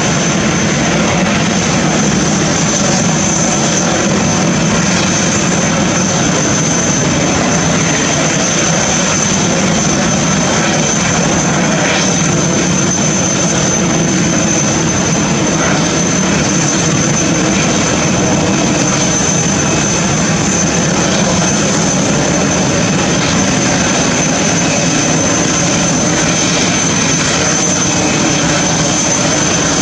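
Airbus A380 jet engines running at a steady, unchanging level: a constant rush of noise with a thin, high whine held on one pitch.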